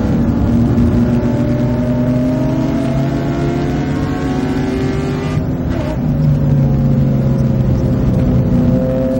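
Race car engine heard from inside the cabin under hard acceleration, its pitch climbing steadily, with a brief break about five and a half seconds in before it climbs again.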